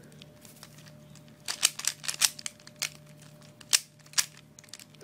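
Plastic Dayan ZhanChi speed cube being turned by hand: quick clicks and clacks of its layers snapping round, a rapid flurry about a second and a half in, then a few single clicks.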